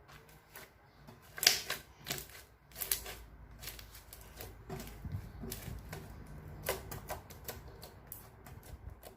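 Slime being squeezed and pressed by hand, giving a run of irregular wet clicks and pops as trapped air bursts. The loudest pops come about one and a half seconds in.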